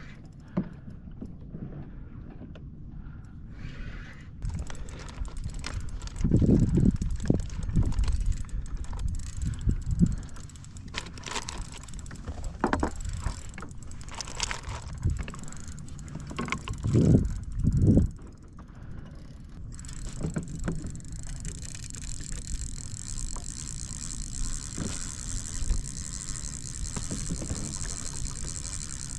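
Wind buffeting the microphone and knocks and water sounds from a fishing kayak, with gusts loudest about a quarter and about three-fifths of the way in. From about two-thirds through, a steady high insect chorus sets in and continues.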